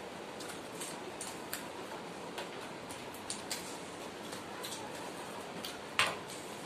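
Two people eating rice and fish curry by hand from steel plates: scattered short clicks and smacks over a steady hiss, with one louder click about six seconds in.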